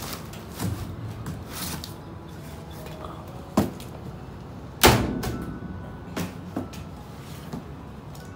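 Rummaging through cardboard boxes and clothes in a dumpster with a grabber stick: rustling and knocks, with a sharp bang about three and a half seconds in and a louder one about five seconds in that rings briefly, then a few lighter knocks.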